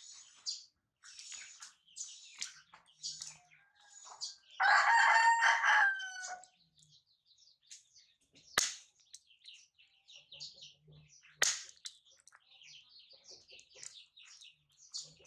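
A rooster crows once, about five seconds in, over small birds chirping on and off. Two sharp clicks come later.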